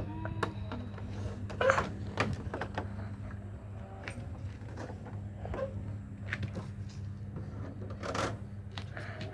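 Small electric fan motor giving a steady low hum, with scattered clicks and knocks of handling on top.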